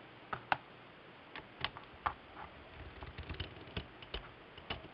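Irregular light metallic clicks from a let-down tool being fitted onto and turned on the mainspring winding arbor of an Ingraham time-and-strike clock movement, the ratchet click clicking as the spring is taken up before being let down.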